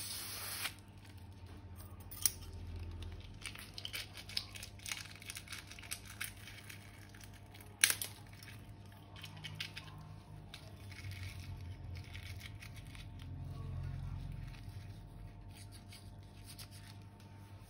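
Quiet snipping of scissors and crinkling of thin plastic, with a few sharper clicks about two and eight seconds in.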